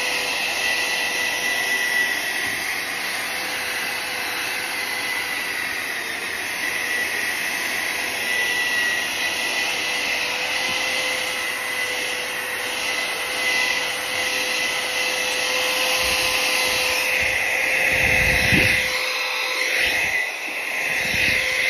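Corded electric drill running steadily with a polishing pad, buffing an iron surface: a constant motor whine over a rough rubbing hiss. Near the end the pad's contact shifts, with a few low thumps.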